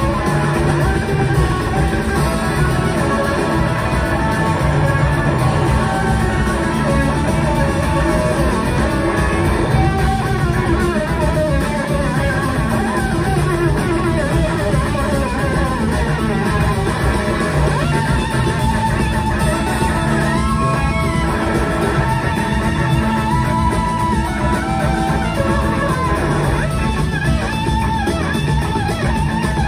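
Live blues-rock band playing an instrumental passage: electric guitar lead lines over two drum kits and bass, with no singing, heard from the audience.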